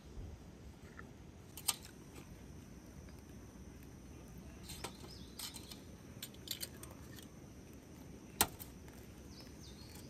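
Scattered small clinks and knocks as a glass bottle and a small cup are handled and set down on a folding metal camp table, the sharpest about eight seconds in. A faint bird chirp near the end.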